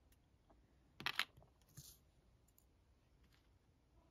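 Small parts of an alternator brush holder clicking against each other as they are handled: a quick cluster of two or three sharp clicks about a second in, then one fainter click.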